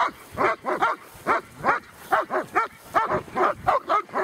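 Dog barking rapidly and without pause, about three short barks a second.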